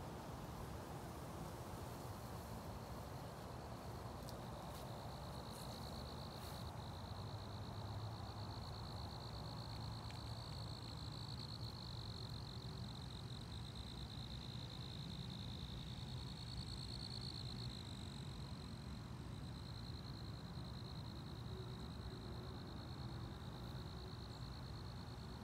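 An insect's continuous high-pitched trilling buzz, steady and unbroken, fading in over the first few seconds, over a low outdoor rumble.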